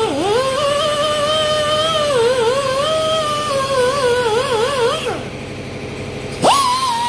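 Background song: one voice singing long, wavering, ornamented notes with pitch slides. The voice drops out about five seconds in and returns with a quick upward slide just before the end.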